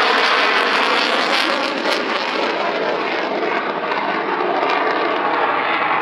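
Mitsubishi F-2 fighter's single General Electric F110 turbofan: loud jet noise as the aircraft flies past and climbs away, a steady rush that eases slightly after about two seconds.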